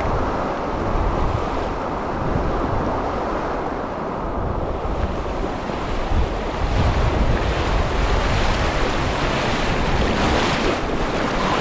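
Wind gusting and buffeting the microphone as a storm comes in, over the steady rush of a mountain creek.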